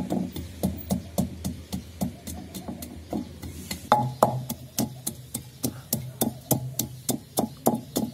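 Long wooden pestle pounding ginger, garlic and green chillies in a terracotta mortar: a steady rhythm of dull strikes, about three a second.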